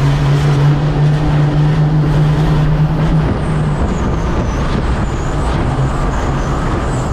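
Motor vehicle running: a steady low engine drone that fades about three seconds in, with a loud rushing noise throughout.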